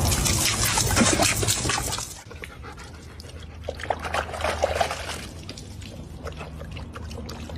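Water trickling for about the first two seconds, then a dog's panting and small noises.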